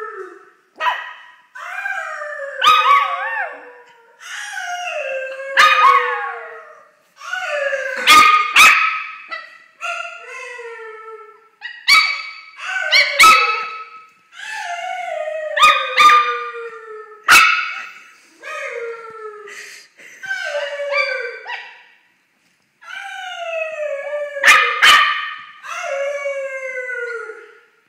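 Small long-haired dog howling over and over, each howl sliding down in pitch over a second or two, broken by sharp single barks, sometimes two in quick succession.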